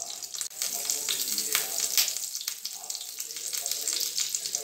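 Cumin seeds sizzling in hot ghee in a non-stick frying pan: a steady hiss with many small crackles as the seeds fry, the first step of a tadka.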